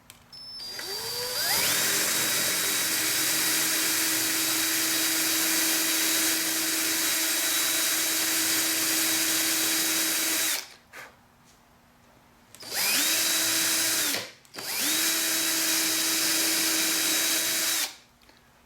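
Electric drill with a 3/16-inch bit, boring a hinge hole into a wooden dowel. It spins up with a rising whine and runs steadily for about nine seconds, then stops. Two shorter runs follow, of about a second and a half and about three seconds.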